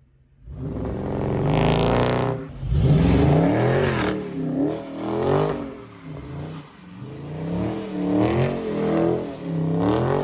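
Dodge Charger Scat Pack's 392 (6.4-litre) HEMI V8 revving hard under throttle. It starts suddenly about half a second in, climbs in pitch, then surges up and down several times.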